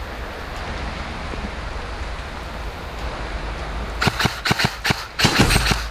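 Heavy rain falling steadily. About four seconds in, a quick run of loud, sharp clicks and knocks close to the microphone, bunching together near the end.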